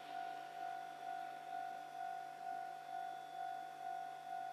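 Railway level-crossing warning bell ringing in an even repeating ding, about two strikes a second, signalling an approaching train.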